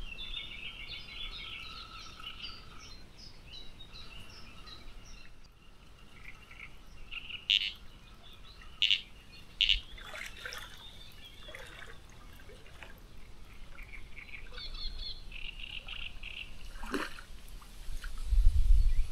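Small birds chirping and singing in short repeated notes, with three short sharp sounds a little past the middle and a low thump near the end.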